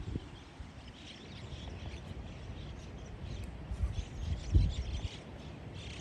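Wind buffeting the microphone in low gusts, strongest about four to four and a half seconds in, with faint chirps from a flock of small birds flying overhead.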